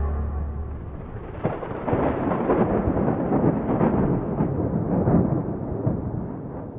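Background music fades out, then about a second and a half in a rolling thunder rumble begins, crackling and rising and falling, easing off toward the end.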